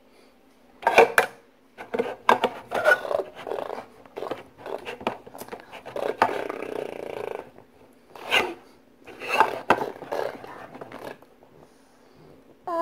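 Handling noise of plastic toys: a small doll being set on and moved about a toy toilet, scraping and knocking against it and the table in irregular bursts.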